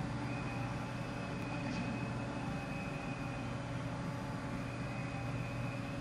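Steady low background hum with a faint high whine that comes and goes.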